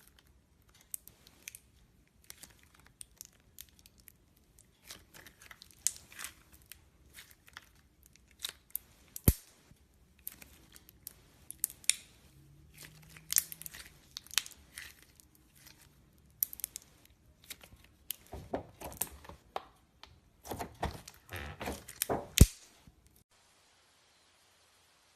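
Clear slime being squeezed, stretched and pressed by hand, giving irregular sticky crackles, pops and clicks. These stop about 23 seconds in.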